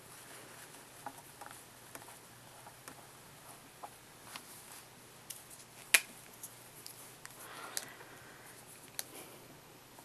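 Faint handling sounds of hands and a felt-tip marker on a paper writing pad: scattered light taps and clicks, one sharper click about six seconds in, and a short rustle just under two seconds later.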